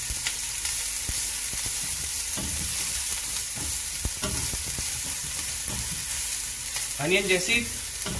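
Chopped onion and garlic sizzling in hot oil in a non-stick pot with a steady hiss. A plastic spatula stirring them knocks and scrapes against the pan now and then.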